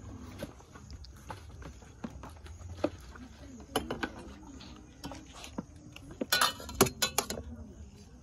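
Serving spoons clinking and scraping against plastic plates, bowls and a metal pot as food is dished out, in scattered small knocks, with a burst of louder clattering about six seconds in. Faint voices murmur in the background.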